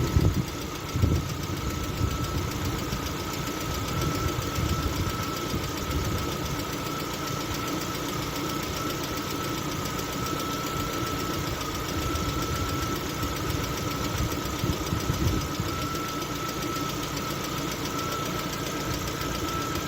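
LADA Vesta petrol engine running with its hydraulic valve lifters knocking, a steady whine running over the top and a few louder knocks about a second in. The lifter knock comes from jumping oil pressure caused by a torn seal ring on the oil pickup.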